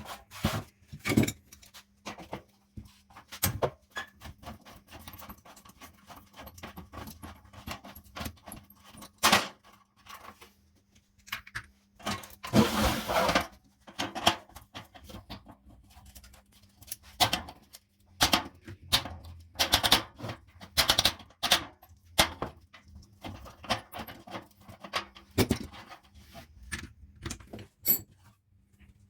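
Metal parts of an old electric fan being handled and worked on by hand: irregular clinks, taps and knocks with a longer scraping sound near the middle, over a faint steady hum.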